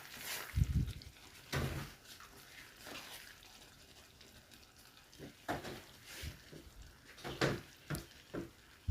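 Occasional knocks and scrapes of a cooking utensil against a pan, with a dull thump about a second in and a quiet stretch in the middle before a few more short knocks near the end.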